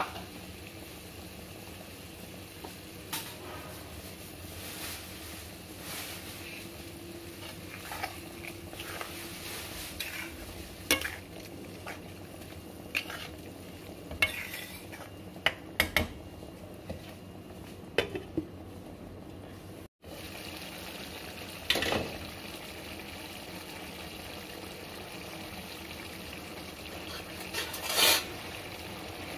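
A spoon stirring chole and soya chunks in a frying pan, with repeated scrapes and knocks against the pan, over a steady sizzle of the simmering curry. There is a brief break about two-thirds through, and a louder clatter near the end.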